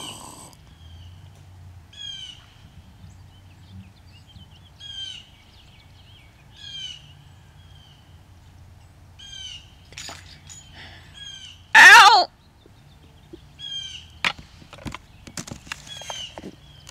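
Small birds chirping in short repeated calls every second or two, with one loud, harsh call about twelve seconds in.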